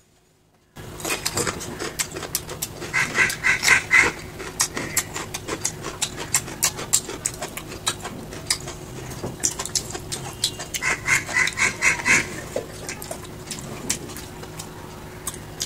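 Wet squishing and clicking of fingers mixing rice and fish curry on a steel plate, with close, wet chewing and lip-smacking as mouthfuls are eaten.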